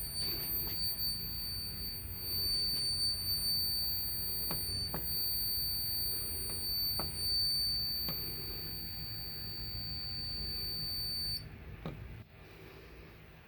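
Fire alarm system's electronic buzzer sounding one steady high-pitched tone, which cuts off suddenly near the end, with a few sharp clicks along the way. No bells, sirens or voice messages sound with it after the pull station is pulled.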